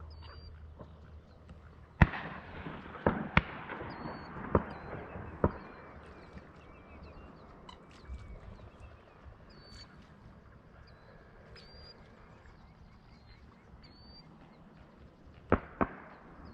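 Shotgun shots across the marsh: one loud shot about two seconds in, four more over the next few seconds, and a quick pair near the end, each trailing off in an echo. Faint short high-pitched bird calls repeat in the background.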